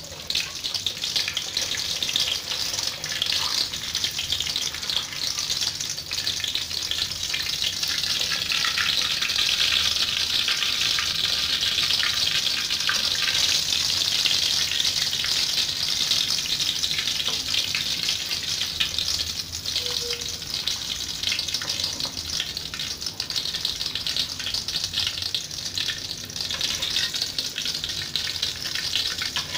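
Whole snakehead fish sizzling as it fries in shallow oil in an aluminium wok: a steady hiss that swells a little in the middle.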